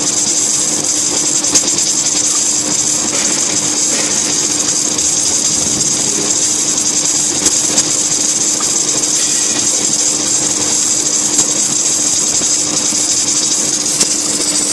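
Heavy steel-fabrication machinery running steadily: a constant hum under a strong high hiss, with a few faint clicks.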